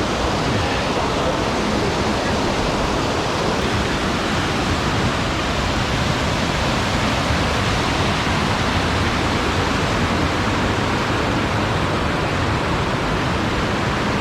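Snowmelt-swollen mountain creek rushing in a loud, steady wash of water at close range.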